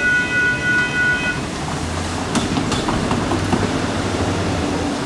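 WCH Gen 2 Type 1.5 electronic crossing bells ringing in a fast pulsing tone, cutting off suddenly about a second and a half in as the gates finish rising at the end of the test activation. After that comes street traffic noise with a low steady hum and a couple of light knocks.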